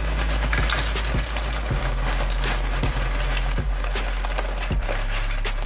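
Tortilla chips poured from a plastic bag onto a glass plate: a dense crackling rustle of the bag and chips sliding and tumbling onto each other. Background music with a steady beat plays underneath.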